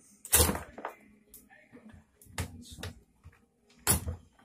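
Knocks and clicks of hands and a screwdriver handling a CRT television's circuit board, a few sharp strikes with quiet gaps between. The loudest comes about a third of a second in and another near the end.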